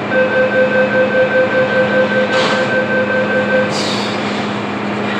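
MTR M-Train door-closing warning: a rapid pulsing beep, about three pulses a second, that stops after about three and a half seconds. Two short air hisses come near the middle and the end, over the train's steady hum.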